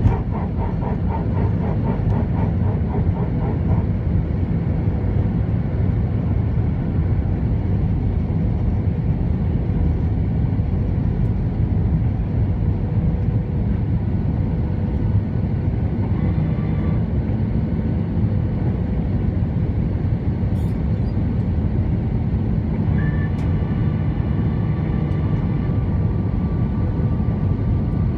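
Cabin noise inside an Airbus A320-214 heard from a window seat: a steady loud rumble of the CFM56 engines and rushing air, with a fast fluttering rattle in the first few seconds. Faint steady tones come in over it about two-thirds of the way through.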